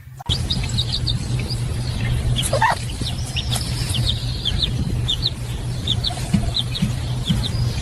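Small birds chirping over and over in short high notes, with one longer rising call about a third of the way in, over a steady low hum.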